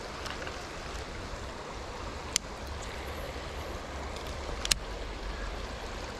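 Creek water running steadily over a shallow riffle, with two sharp clicks from the baitcasting reel about two seconds apart.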